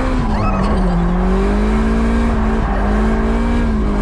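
Drift car's engine running hard at high revs, heard from inside the cabin, with tyre squeal as the car slides. The engine pitch dips about half a second in, then climbs back and holds, wavering slightly.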